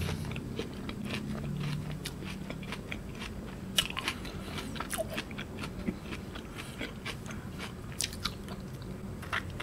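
Close-up chewing of a KitKat Gold ice cream bar, its crunchy wafer-like coating giving scattered small crunches between bites.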